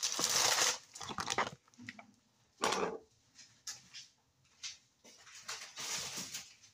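Crinkling plastic snack bag and pork skins being crumbled by hand for breading, in several separate crackly bursts with a few small clicks between them.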